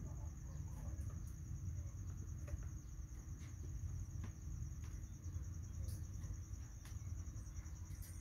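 A steady, high-pitched insect trill, over a low background rumble and a few faint clicks.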